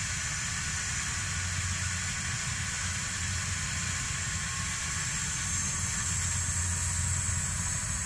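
Police helicopter on the ground with its turbine running: a steady hiss with a low hum underneath.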